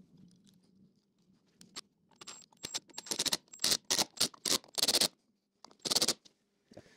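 Screwdriver turning a screw down into the top bracket of a sprung engine mount, in about ten short rasping strokes with fine ticks in them, starting a couple of seconds in.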